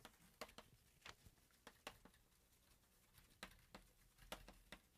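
Chalk tapping and scratching on a blackboard while writing: faint, sharp, irregular taps, about a dozen, against a quiet room.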